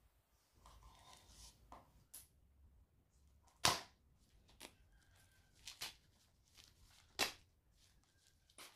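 Clear plastic shrink wrap on a small cardboard box being slit with a knife and handled: soft crinkling and rustling, then a few sharp clicks and snaps, the loudest about three and a half seconds in and again about seven seconds in.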